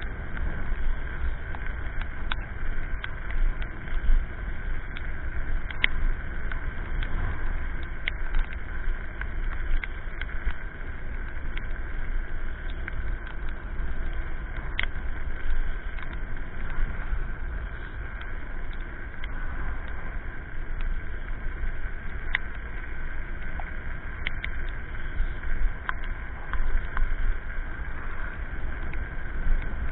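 Electric scooter riding along a road, heard from its mounted camera: a strong, uneven low rumble of wind and road noise under a steady high whine, with scattered sharp clicks.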